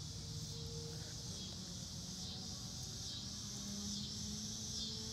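Outdoor background of a steady high-pitched insect chorus, pulsing gently about twice a second, over a low hum.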